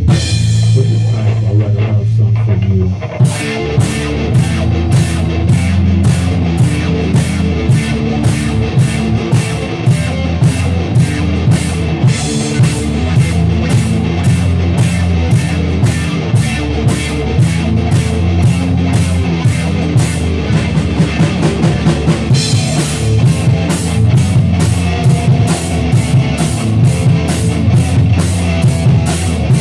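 Rock band playing an instrumental passage with electric guitar, bass and drum kit. A held chord rings for about three seconds, then the full band comes in with a driving beat and cymbal strikes about twice a second.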